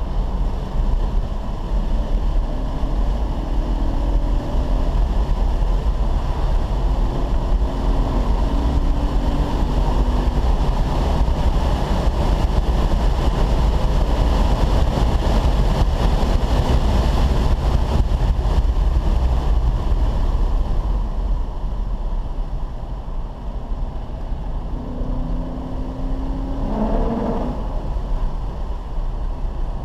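Car engine and tyre and road rumble inside the cabin while lapping a race track at speed, the engine note climbing in short runs as it pulls through the gears and easing off for a while past the middle.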